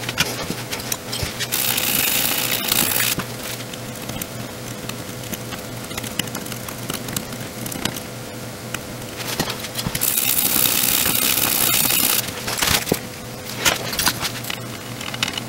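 Work on a circuit board: two bursts of hissing, one about a second and a half in and a longer one around the ten-second mark. Between them come small clicks and taps of tools on the board, over a steady low hum.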